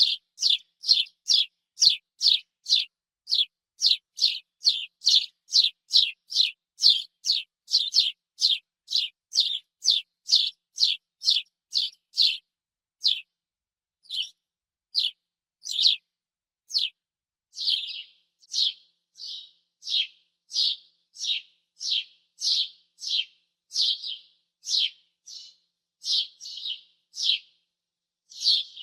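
House sparrow cheeping: a steady run of short chirps, about two a second, for the first twelve seconds or so, then sparser, fuller chirps with short pauses between them.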